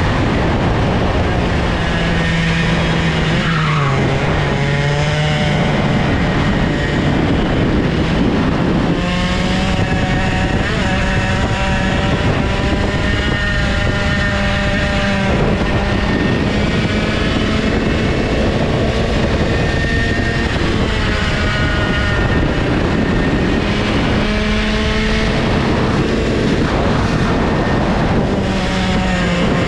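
Old IAME two-stroke kart engine at racing speed, its pitch falling as the kart slows into corners and climbing again as it accelerates out, several times over.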